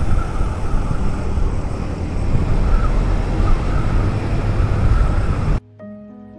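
Motorcycle on the move: engine and wind noise rushing over the microphone. It cuts off suddenly near the end and gives way to soft background music with held notes.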